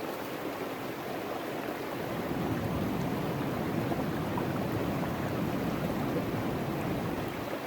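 River water rushing through a gold sluice box in a steady wash of noise, which swells louder and deeper from about two seconds in until near the end.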